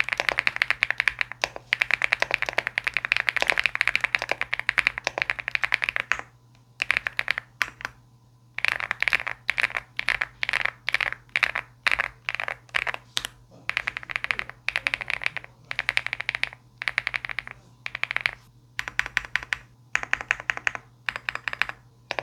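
Typing test on a Leobog Hi8 aluminium mechanical keyboard with Candy Vanilla switches and Cherry-profile keycaps, in stock, unmodified form. Fast continuous typing for about six seconds, then, after short pauses, bursts of keystrokes separated by brief gaps.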